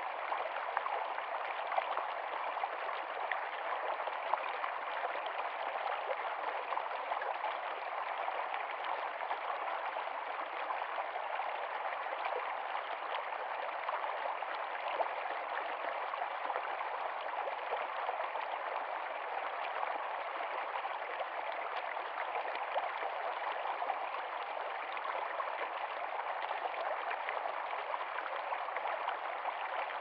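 Shallow rocky stream running over stones, a steady rush of water with many small splashes.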